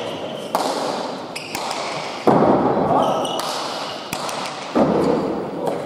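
Bare-handed Basque pelota (main nue) rally: the hard leather ball is struck by hand and hits the wall and floor in a string of sharp, echoing smacks. The loudest come about two and a half seconds in and again near five seconds, each ringing on in the hall.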